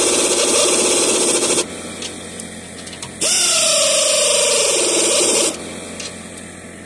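Power drill spinning an 11/16 socket to run down the nuts on a traction spring's clamp bolts. It runs in two bursts, the first stopping about a second and a half in, the second starting a moment later with a quick rise in pitch and then slowing steadily until it stops about two-thirds of the way through.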